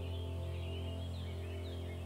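Soft instrumental background music holding a slowly fading chord, with birds chirping over it.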